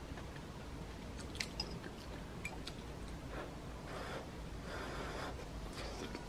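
Someone eating hot dumpling soup with a spoon: chewing, a few light clicks of a metal spoon against a ceramic bowl in the first half, then soft breathy bursts of blowing on the hot soup.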